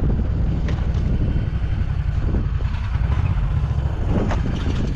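Snowmobile engine running steadily under way, a dense low drone with no break.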